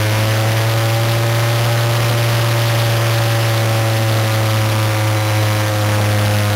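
Radio-controlled model airplane's motor and propeller running steadily in flight, a continuous drone whose pitch rises slightly over the first two seconds, then eases gently down.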